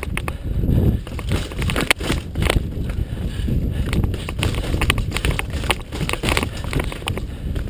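Mountain bike ridden down a rough trail: tyres running over dirt and rock, with the bike rattling and knocking many times a second, over a low rumble of wind on the microphone.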